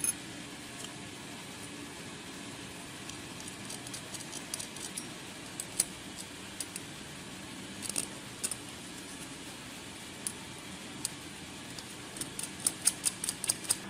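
Small metal screws, nuts and washers clicking and clinking against a finned metal heat sink as power transistors are fastened on by hand. The clicks are scattered and sharp, bunching together near the end, over a faint steady hiss.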